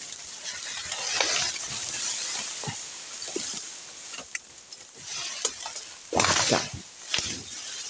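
Dry reeds and brush rustling and crackling as they are pushed aside, with two louder swishing sweeps about six and seven seconds in.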